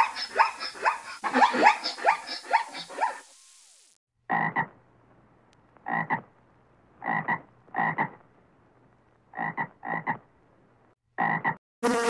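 Zebra calling: a rapid series of short barking calls, each falling in pitch, which stops a little over three seconds in. Then a frog croaks seven times, in short separate croaks at uneven intervals.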